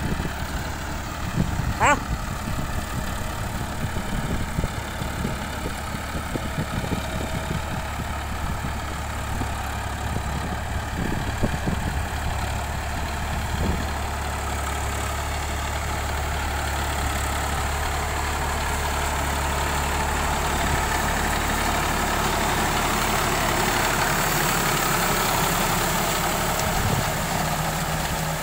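Small diesel tractor's engine running steadily under load as it drags a rotary tiller through flooded paddy mud, growing a little louder in the second half as it comes closer.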